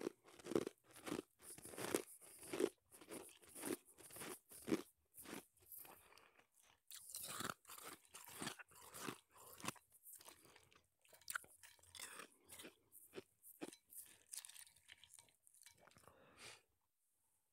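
Shaved ice being crunched and chewed right at a microphone held to the lips: a run of soft, irregular crunches, about two a second, breaking off briefly near the end.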